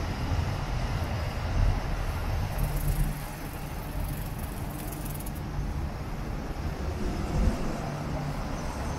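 City street traffic noise heard from a moving bicycle, with a steady low rumble. A high hiss comes in about three seconds in and stops about two seconds later.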